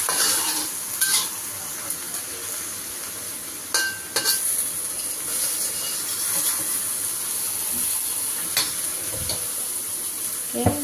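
Bok choy sizzling in a hot wok as it is stir-fried, with a steady frying hiss. A metal ladle scrapes through it and knocks against the wok a few times.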